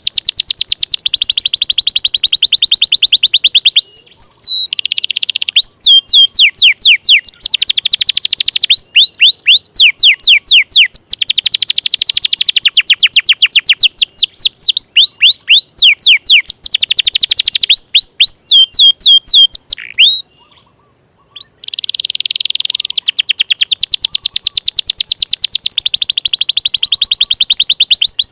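Domestic canary singing long, very fast trills of repeated notes mixed with swooping rolls, with a brief pause about twenty seconds in.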